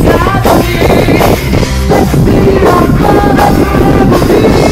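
Live rock band playing loud: a woman singing held, wavering notes over electric guitars and a drum kit. The recording is from a phone microphone close to a loud PA.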